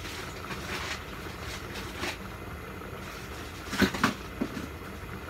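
Steady low rumble of a lit gas burner under a lidded wok of boiling potatoes and carrots, with a few sharp knocks about four seconds in.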